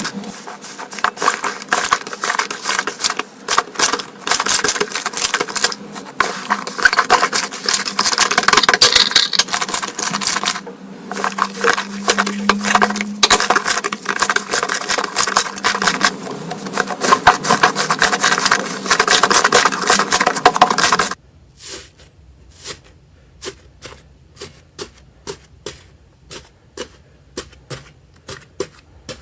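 Slime being squeezed and worked by hand, giving dense crackling clicks and pops. About two-thirds of the way through it cuts to a quieter clip with separate clicks about twice a second.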